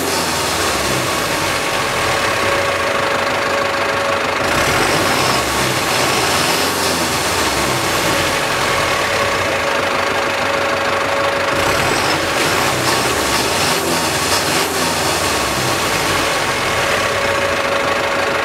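GAZ Valdai truck's Cummins ISF 3.8 four-cylinder turbodiesel idling, heard at the tailpipe: a steady diesel clatter with a thin steady whine over it.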